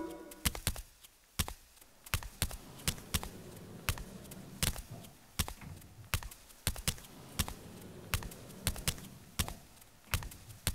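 A series of sharp, short knocks or taps, unevenly spaced at about two to three a second.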